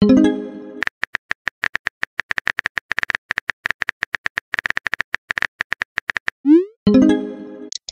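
Texting-app sound effects: rapid phone-keyboard tap clicks as a message is typed. A pitched message tone sounds at the start, and about six and a half seconds in a quick rising swoosh is followed by another short message tone.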